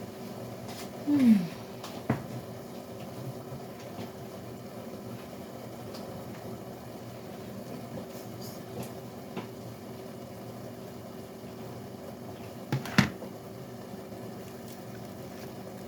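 Steady low hum of a running kitchen appliance, with a sharp click about two seconds in and a louder double knock, like a utensil or dish set down on the counter, near the end.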